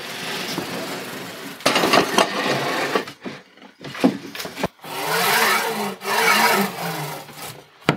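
A heavy counterweight slid by hand up and down its two polished steel linear rods several times, a rolling, rasping slide that rises and falls in pitch with each stroke as it rides smoothly. Before that, wood scrapes on the workbench as the plywood scanner frame is shifted.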